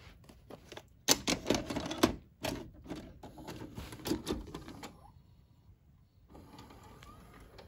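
Sony SLV-N51 VHS VCR taking in a cassette: a few light clicks, then a loud clatter and mechanical clicking and whirring as the tape is pushed in and the loading mechanism draws it in. About six seconds in a quieter steady whir follows as the machine goes into play.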